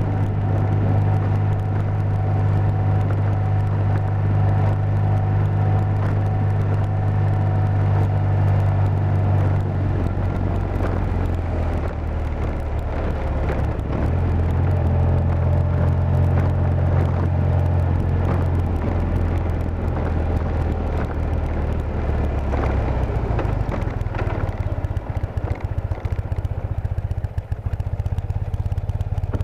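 BMW airhead motorcycle's R80 air-cooled flat-twin engine running under way, with wind and road noise. The engine note drops about ten seconds in, rises again a few seconds later, and falls off over the last several seconds.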